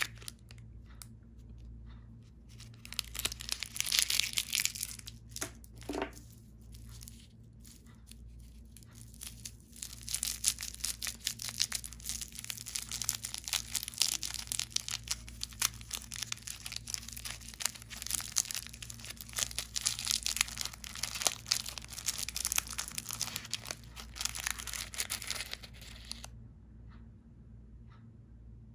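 Foil candy wrappers crinkling and tearing as a foil-wrapped lollipop is unwrapped by hand: scattered crackles at first, then dense, continuous crinkling for about fifteen seconds, which stops a couple of seconds before the end. A faint low hum runs underneath.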